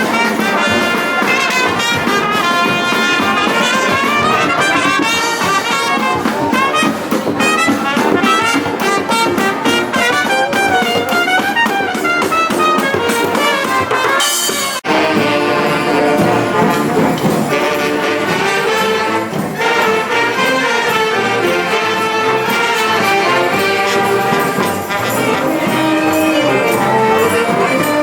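Street brass band playing, horns over percussion. About halfway through the music breaks off abruptly and a different tune takes over.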